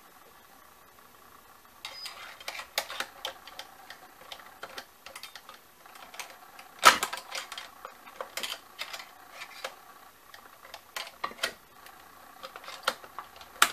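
Irregular small clicks, taps and knocks of a screwdriver and small metal parts being worked inside a Singer sewing machine's stitch-length regulator and buttonhole mechanism, starting about two seconds in, with one sharper knock about seven seconds in.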